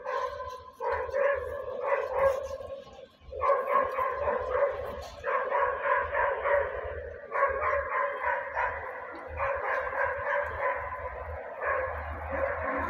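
A dog barking over and over, in fast runs of barks broken by short pauses.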